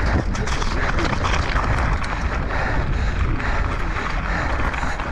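Mountain bike descending a loose, stony trail at speed: tyres crunching over gravel and rocks, with the bike rattling in quick clicks and wind rumbling on the helmet camera's microphone.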